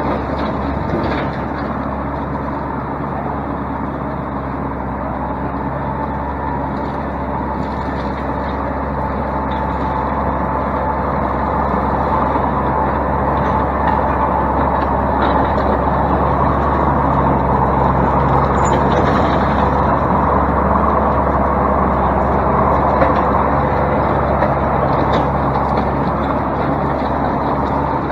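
Kubota M8200 tractor's diesel engine running steadily with a bush hog rotary cutter, growing louder as the tractor comes close and easing off again near the end.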